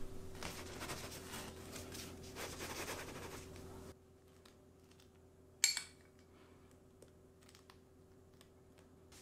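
Soft scraping and rustling of cake batter being worked in a paper baking mold, then, after a sudden drop in level, a single sharp clink with a short ring and a few faint light ticks as raisins are scattered over the batter.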